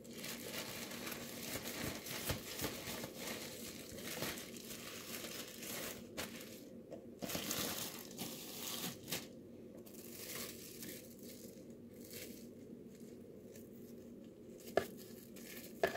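Thin plastic film (cling wrap and a plastic bag) crinkling and rustling in irregular bursts as wrapped raw pork chops are handled and pressed flat, quieter in the second half.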